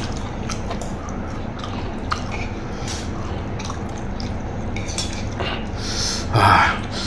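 Eating sounds: a spoon clicking and scraping on a metal tray and chewing of rice and stir-fried basil pork, over a steady low hum, with a louder mouth sound about six and a half seconds in.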